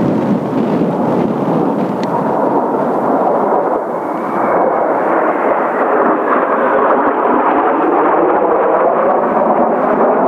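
Jet noise from Kawasaki T-4 jet trainers flying overhead: a loud, steady rush. A faint whine rises slightly about four seconds in, and the sound grows a little louder in the second half.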